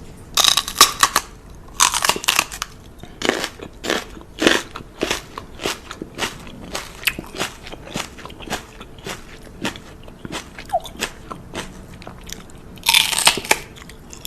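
Crunchy chewing: something hard being bitten and chewed up close, in irregular crunches about once or twice a second, with denser runs of crunching near the start and again near the end.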